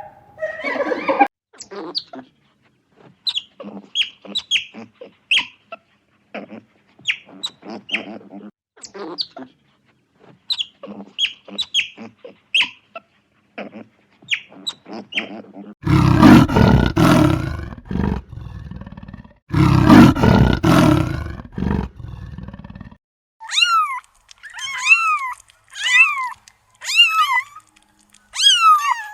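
A run of animal calls: many short high chirps for the first half, then two loud, harsh calls of about three seconds each, then about six pitched cries that rise and fall, roughly one a second.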